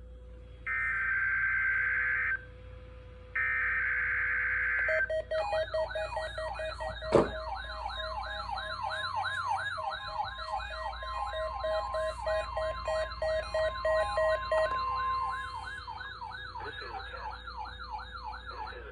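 NOAA Weather Radio weekly test alert signal: two screechy bursts of digital data-header tone, then a siren-like warble of about three sweeps a second with rapid beeping beneath it and a steady tone in the middle part. There is a sharp click about seven seconds in, and the warble fades near the end.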